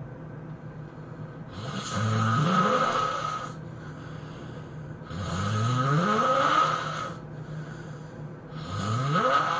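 A person snoring, three long snores about three and a half seconds apart, each rising in pitch as it goes.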